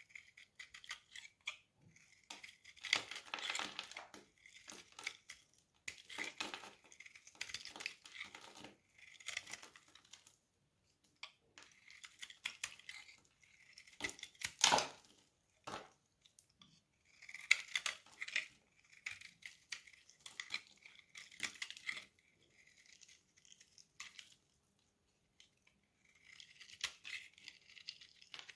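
Dry bar soap being cut with a knife: crisp crackling and crunching as the blade slices and scrapes through it, in runs of a second or two with short pauses between, and one sharper crack about halfway through.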